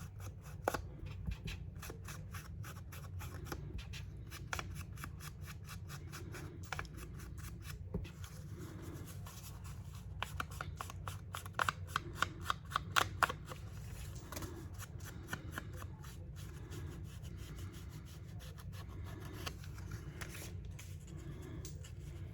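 Paper being handled and worked at a craft table: soft rustling and many small ticks, with a quick run of sharper clicks a little past the middle.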